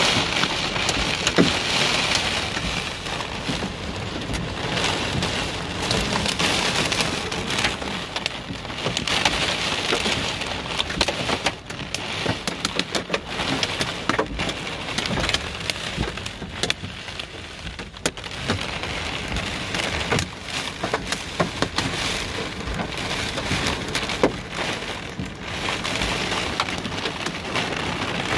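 Heavy rain and hail pelting a car's roof and windows, heard from inside the car: a constant dense hiss of rain broken by many sharp, scattered hits.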